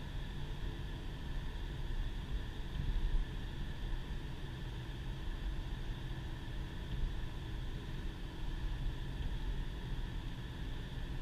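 Inside the cabin of a 2010 Subaru Impreza at a steady cruise: a low engine drone under tyre and road noise. The level holds even throughout, with a slight swell about three seconds in.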